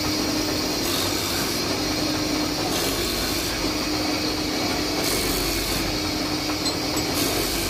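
Wood lathe running with a steady hum while a chisel cuts the spinning handle of a cricket bat, a continuous scraping hiss of wood being shaved.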